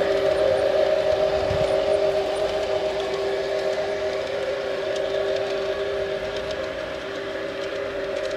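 Garden-railway model freight train running along its track: a steady whine with two held tones over a rattling hiss, fading as the train moves away.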